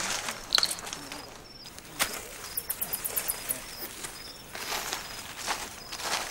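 Outdoor field ambience: scattered rustles and clicks of hands and feet moving through grass and dry leaf litter, with a faint short high chirp repeated throughout.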